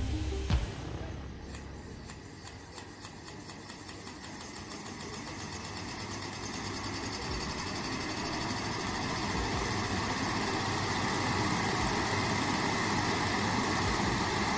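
Indian Railways electric locomotive powering up: a thump about half a second in, then its blowers and auxiliary machinery spin up into a steady whir that grows louder over the first ten seconds and then holds.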